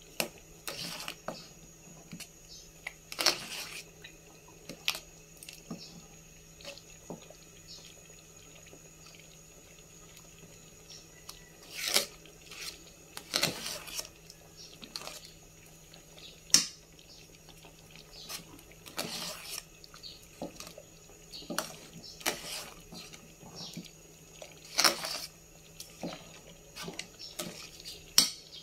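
Wooden spatula stirring thick champorado (chocolate rice porridge) in a metal pot: wet sloshing with irregular scrapes and knocks against the pot, over a faint steady low hum.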